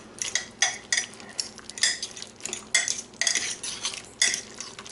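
Two metal forks clinking and scraping against the slow cooker's crock as tender cooked chicken thighs are shredded in their juices, in irregular strokes about two a second.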